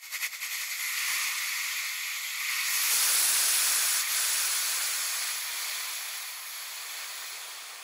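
A steady high hiss without any tone, opening with a few sharp clicks where the song breaks off. It swells to its loudest about three seconds in and then slowly fades.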